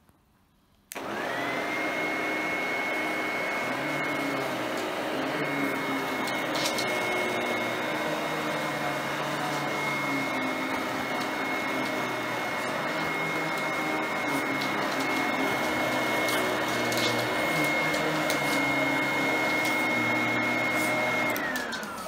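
Upright vacuum cleaner switched on about a second in, its motor running steadily with a high whine. Near the end it is switched off and the whine falls away as the motor spins down.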